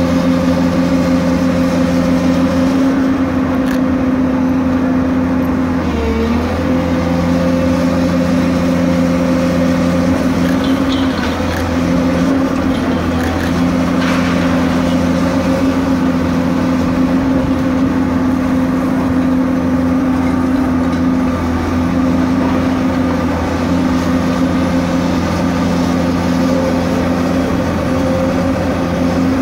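Diesel engine of a high-reach demolition excavator running steadily at close range, a constant engine hum with a brief dip in pitch about six seconds in.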